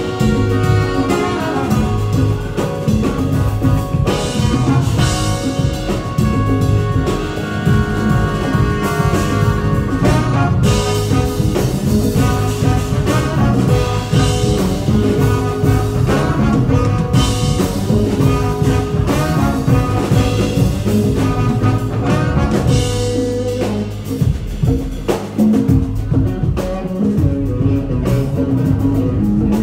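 Live jazz-funk fusion band playing: trombone and saxophone playing a melody together over drum kit, bass guitar and keyboards. Near the end the horns stop and the electric guitar and rhythm section carry on.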